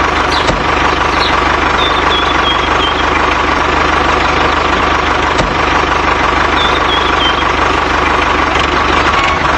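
A small engine or motor running steadily, with a low rumble and a constant whine.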